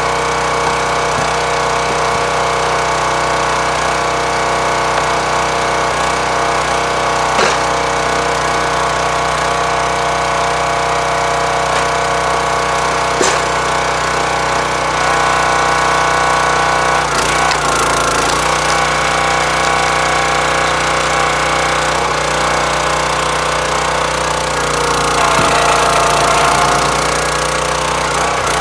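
Hydraulic log splitter's engine running steadily, its tone changing under load twice, around the middle and near the end, as the ram drives ash rounds through a home-built 4-way wedge. A few sharp cracks of the wood splitting.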